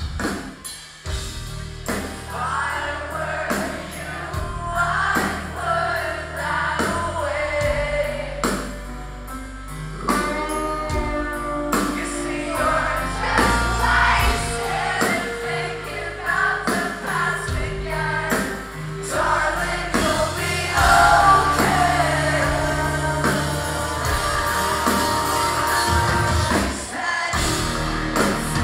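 Live post-hardcore band playing electric guitars, bass and drums with a singer, heard from the audience in a large hall. The sound briefly drops out about a second in and again near the end.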